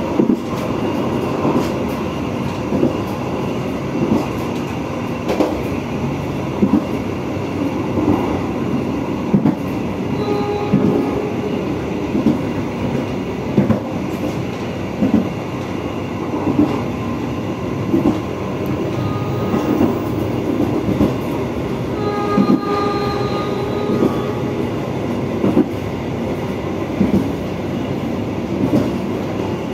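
Passenger train running at speed, heard from its rear car: a steady rumble with regular clickety-clack knocks of the wheels over rail joints. The locomotive horn sounds briefly about ten seconds in and again for about two seconds a little past the twenty-second mark.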